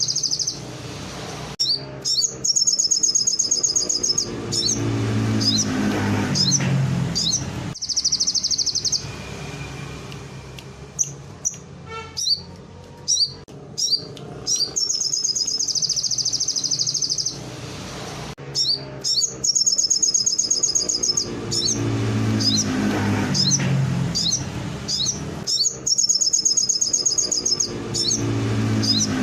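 Songbird singing a canary-style song: long, rapid high trills of a few seconds each, broken by short sharp chirps. A deeper pitched sound swells and fades underneath a few times.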